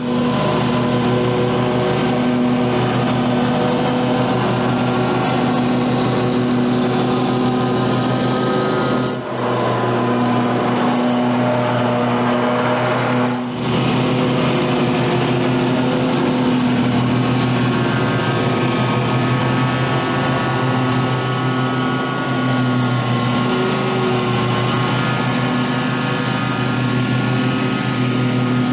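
Scag zero-turn riding mower's engine running steadily while mowing grass, its note shifting slightly partway through.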